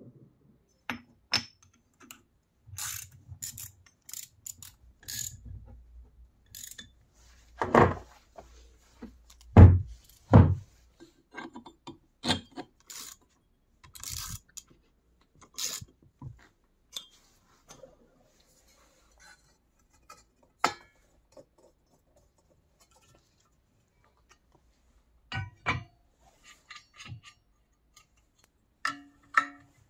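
Metal parts and a wrench clinking, tapping and knocking as an electric motor is assembled and parts are bolted on by hand: scattered sharp clicks, with three heavier thumps between about eight and ten and a half seconds in.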